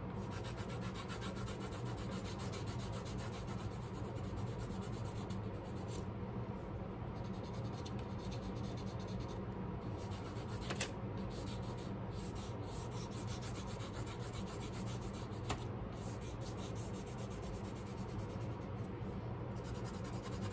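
Lead pencil rubbed rapidly back and forth under heavy pressure over the back of a sheet of printer paper laid on a lino block: a steady scratchy shading sound as the graphite sketch is transferred onto the block, with a couple of sharper ticks along the way.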